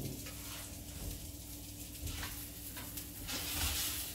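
Rolled spinach and feta pies sizzling as they brown in a frying pan, with a few short clicks of a spatula against the pan and a faint steady hum underneath.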